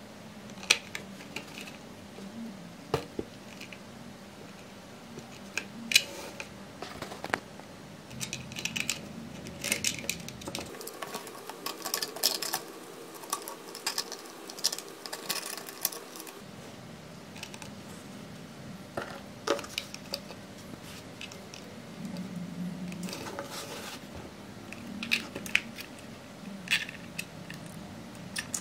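Close-up handling of small electronics on a 3D-printed plastic boat hull: scattered light clicks and taps as connector plugs, a receiver and a small LiPo battery are fitted in place.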